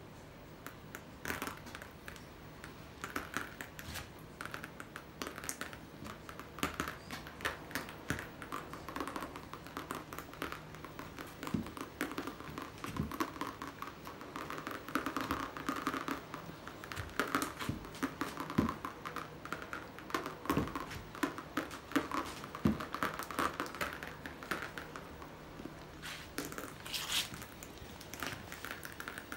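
Irregular soft pattering and tapping of acrylic paint being dripped and spattered onto a canvas, with some rustling.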